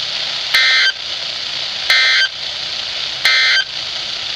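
Three short bursts of the Emergency Alert System's SAME digital data tones, about a second apart over steady hiss. This is the end-of-message code that closes an EAS alert broadcast.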